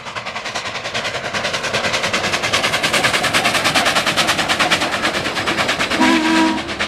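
Southern Pacific 4449, an oil-fired 4-8-4 steam locomotive, working at speed: rapid, even exhaust chuffs, about eight a second, growing louder. About six seconds in its steam whistle starts sounding a steady chord.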